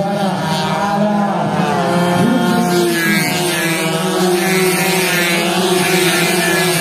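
Several racing underbone motorcycles running at high revs as they come down the straight, their engine notes overlapping, with a rise in pitch about three seconds in as bikes close on the listener.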